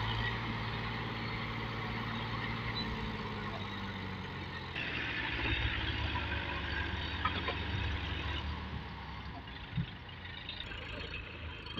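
Diesel tractor engine running steadily as it tows a trolley loaded with soil. About five seconds in the engine gets louder, with more clatter. It fades toward the end, where a single short thump is heard.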